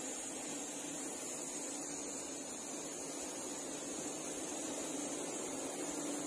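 Steady hiss of a compressed-air gravity-feed spray gun laying down clear coat, with a steady low hum under it.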